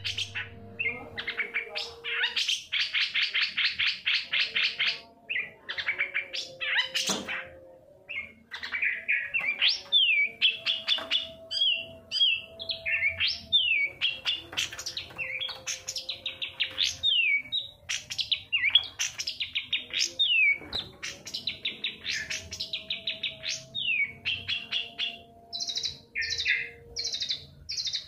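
Long-tailed shrike singing a varied song of fast chattering trills and repeated down-slurred whistled notes. Near the end it shifts to a run of short, evenly repeated higher notes.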